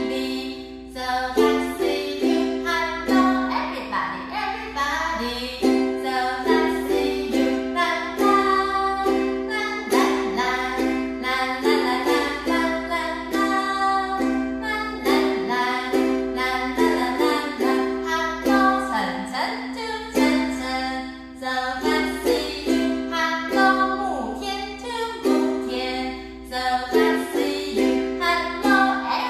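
Ukulele played in a steady, rhythmic strum.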